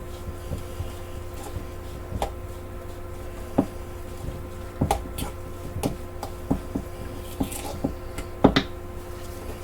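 A utensil knocking and clicking against a mixing bowl, irregular strokes while stirring wet grated-potato latke batter with an egg. A steady low hum runs underneath.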